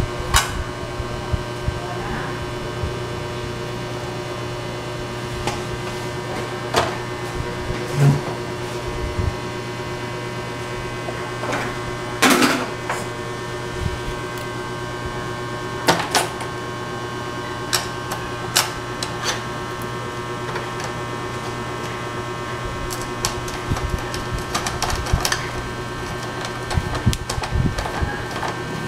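Scattered clicks and knocks of metal parts and tools being handled in an open amplifier chassis, over a steady low hum. The loudest knocks come about twelve and sixteen seconds in.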